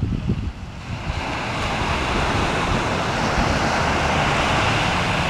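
Ocean surf breaking and washing onto the beach, a steady rushing that grows louder about a second in, with wind rumbling on the microphone.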